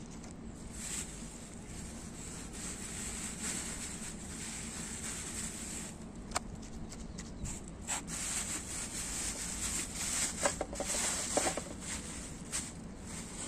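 Close handling sounds of packing vegetable peelings into a cut plastic bottle set in a bucket of soil: rustling and crinkling of plastic with scattered small clicks, busiest about ten to twelve seconds in.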